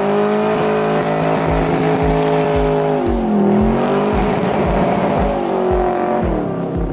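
Rambler station wagon's engine revving high in a burnout, its pitch dipping about halfway through and climbing again, with tyre squeal. From about a second and a half in, a steady low beat thumps about three times a second underneath.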